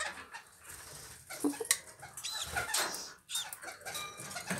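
Kakariki hen shifting and working in the wood-shaving nest litter around a hatching egg: scratchy rustles and light taps, with a few short high peeps from the nest, the clearest about two and three seconds in.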